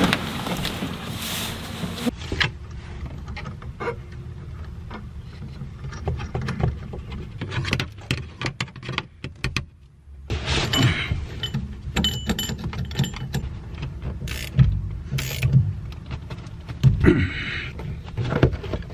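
Hand work on the top mount of a car's rear shock absorber: scattered knocks, clinks and rattles of metal tools and parts, with a few longer bursts of rustling.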